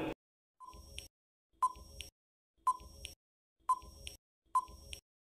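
Quiz countdown-timer sound effect: five short ticking beeps, about one a second, each with a brief tone and a fainter click after it.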